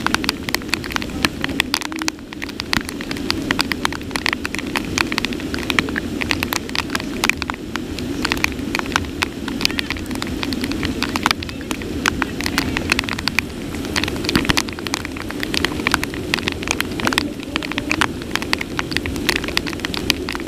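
Heavy rain falling, with close raindrops striking near the microphone as many irregular sharp taps over a steady rushing hiss.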